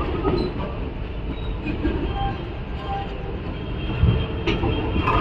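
Passenger express train running on the track: a steady low rumble of the wheels and coach, with a few sharp knocks near the end.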